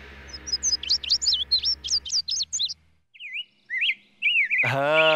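Birds chirping: quick high chirps for the first two and a half seconds, then slower, lower chirps. A loud voice cries out near the end.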